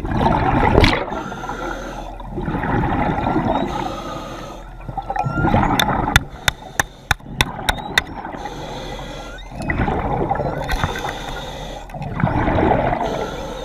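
A diver's breathing and water noise, surging and fading every two to three seconds. In the middle comes a quick run of about eight sharp clicks or knocks.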